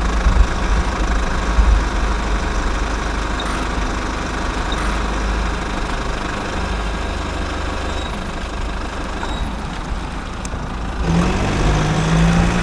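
Truck engine running steadily with a low rumble; about eleven seconds in, a steadier hum comes in and it gets a little louder.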